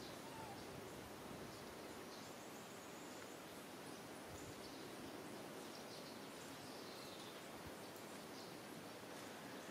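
Quiet outdoor ambience: a steady background hiss with faint, short high chirps scattered through it.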